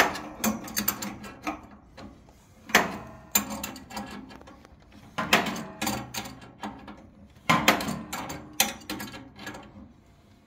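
Adjustable spanners clicking and clanking on brass compression nuts as copper pipe fittings are tightened, in about four bursts of quick metal clicks a couple of seconds apart.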